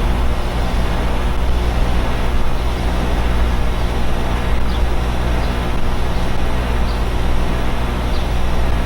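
Neighbours' air conditioners running steadily: a low, even hum with a rushing fan noise over it.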